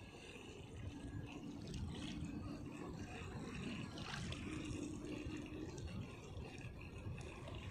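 Shallow sea water lapping, with the faint hum of a small electric toy RC speedboat's motor that comes and goes as the boat runs across the water.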